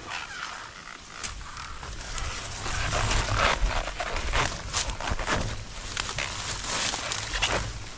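Leaves and brush rustling, with irregular scrapes and light knocks that come thickest from about two and a half seconds in, over a low rumble on the microphone.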